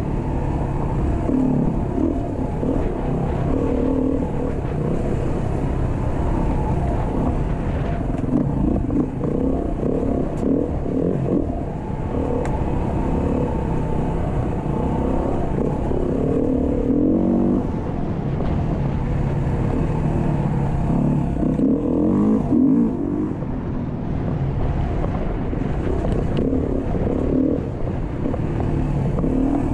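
Beta RS 500 dual-sport motorcycle's single-cylinder four-stroke engine running under way, its pitch rising and falling every few seconds with throttle changes.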